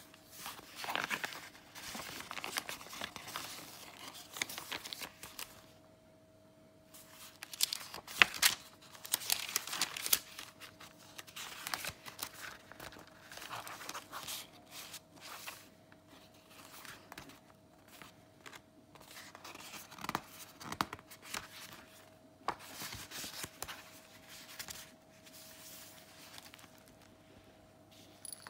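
Pages of a thick handmade paper junk journal turned by hand: irregular paper and card rustling and crinkling with sharp flicks, and a quieter spell of about two seconds some six seconds in.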